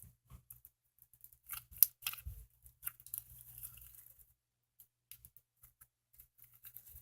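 Jelly cube slime being squished and stretched by hand: quiet, irregular clicks and crackles, with one sharper pop about two seconds in.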